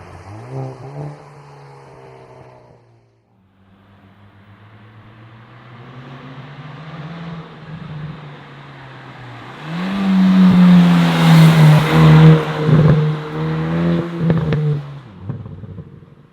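A Hyundai N hot hatchback's turbocharged four-cylinder engine. It gives a short rev, drops away about three seconds in, then holds a steady note that slowly grows louder. About ten seconds in it jumps up in pitch and becomes much louder under hard acceleration for about five seconds, then falls away near the end.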